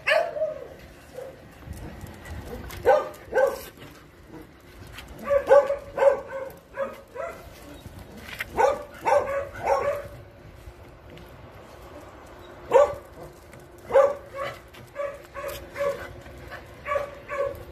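Dogs barking and yipping in quick runs of a few short, high barks, several times over.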